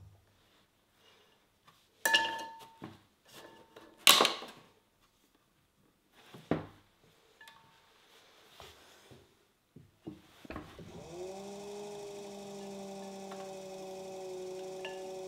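A few sharp clinks and knocks as tools and clay pieces are handled around a stopped electric pottery wheel. About ten seconds in the wheel's motor starts: its hum rises in pitch, then holds steady as the wheel spins.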